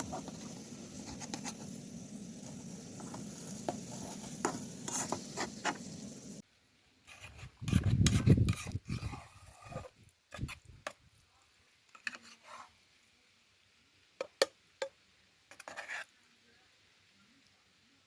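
Food sizzling in a pan while a utensil stirs and scrapes it, cutting off suddenly about six seconds in. Then separate scrapes and clicks, with a loud low thump about eight seconds in.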